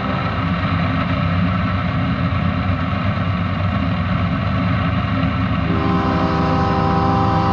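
Steady low rumble with a hiss of rain throughout. About two-thirds of the way in, the approaching freight train's lead locomotive, a GE ES44AC diesel, starts sounding its multi-chime air horn in one long held blast.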